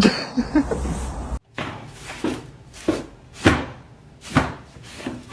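A steady rushing noise with a few short voice-like sounds, which cuts off abruptly about a second and a half in; then a series of sharp knocks, roughly one every half second to second, each with a short ring after it.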